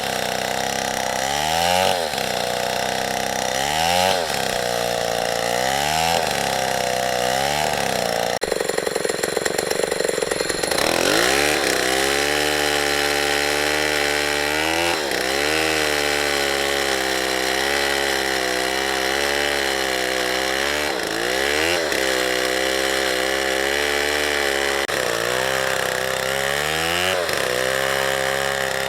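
Two-stroke chainsaw running at high revs. Its pitch dips and recovers every couple of seconds as the chain bogs into the wood. About eight seconds in it drops briefly to a rough low-speed run, then revs back up and cuts steadily, with a few short dips under load.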